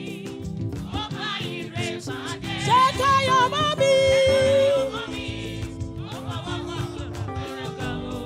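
Gospel choir singing through microphones with instrumental backing: several voices with vibrato over sustained chords and a steady beat.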